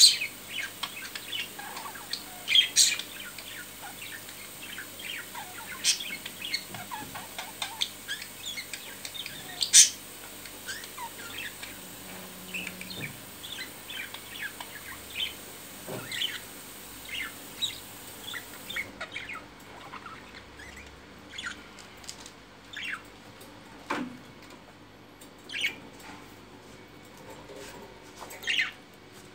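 Budgerigars chirping and chattering in their cage: a steady scatter of short, high chirps, with a few louder sharp calls about 3, 10, 26 and 28 seconds in.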